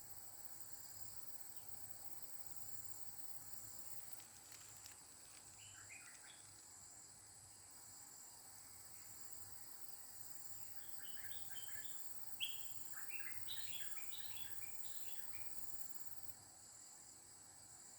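Bulbul calling in short bursts of quick chirps, once around six seconds in and again in a longer run from about ten to fifteen seconds in, over a steady high insect drone. A single sharp click comes about twelve seconds in.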